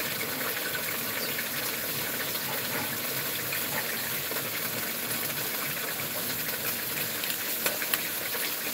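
Food frying in a pan: a steady sizzling hiss, with a few sharp pops near the end.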